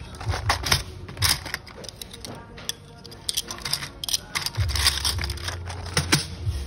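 Small green circuit boards clicking and clattering against each other and a clear plastic tub as they are picked through by hand, in a quick run of light knocks.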